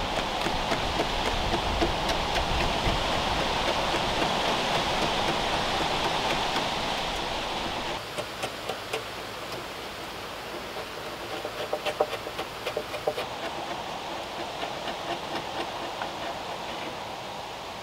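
Large timber-framing chisel pushed by hand along a beam's end joint, paring wood with short scraping strokes and clicks, most of them in the second half. For the first half a steady rushing noise covers it.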